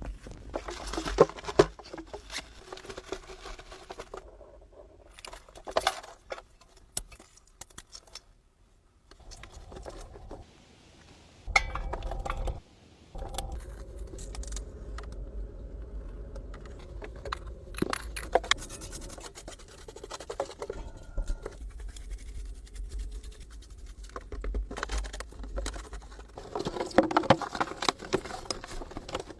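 Food-preparation handling sounds: irregular scraping and scratching with sharp clicks and knocks, busiest near the end.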